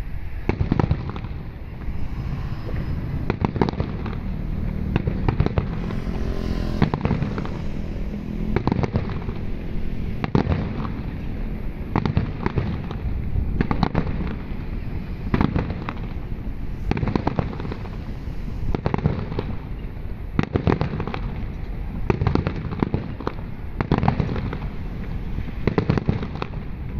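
Aerial firework shells bursting in a continuous run of booms, often several in quick succession.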